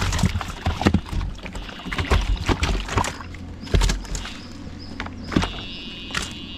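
Pond water splashing and sloshing, with irregular sudden knocks and splashes over a low rumble.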